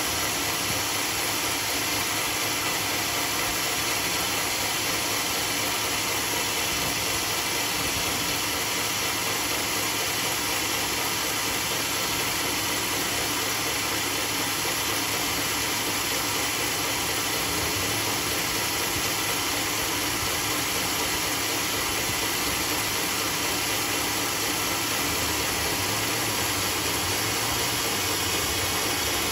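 Homemade band sawmill running with a steady, unchanging whirring hiss.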